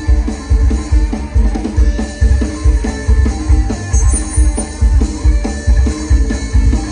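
Live band playing an Isan mor lam toei song: a drum kit with a steady kick-drum beat about twice a second, with electric guitar and bass, amplified through the stage speakers.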